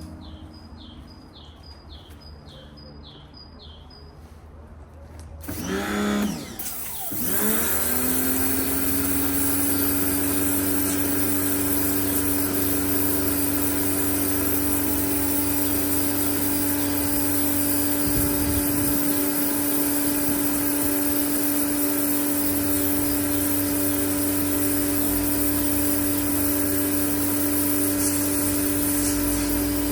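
Electric pressure washer's motor starting up about six seconds in, its pitch sweeping up within a couple of seconds to a steady hum that runs on evenly.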